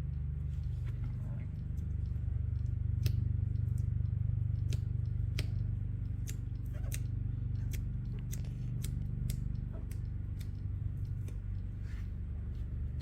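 A blade scoring around the masking tape at a bumper parking sensor through the fresh clear coat, giving scattered small clicks and scrapes at uneven intervals, so the tape can come off without peeling the clear coat. A steady low hum runs underneath.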